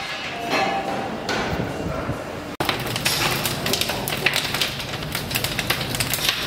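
Dense, irregular metal clicks and knocks around coal-fired Galloway boilers, starting after a sudden cut about two and a half seconds in.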